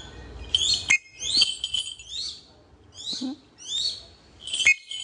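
A trained hawk (ưng ấn, a small Accipiter) calling: a run of about seven short, shrill, high calls, each bending up and then down, roughly one every two thirds of a second. Two sharp clicks come in among them.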